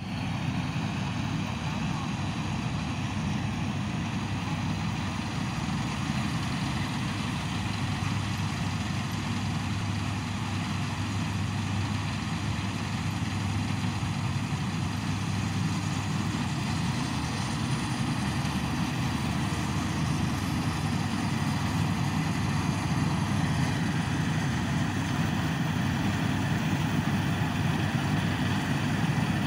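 Panesar combine harvester running steadily under load as it cuts a standing crop: a continuous, low drone of its diesel engine and threshing machinery, growing a little louder in the second half.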